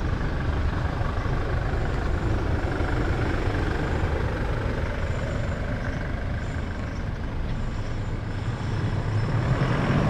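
Toyota LandCruiser 79's 2.8-litre four-cylinder turbo-diesel (1GD) running as the ute pulls away from the kerb, turns around and drives back past, getting louder near the end as it comes close.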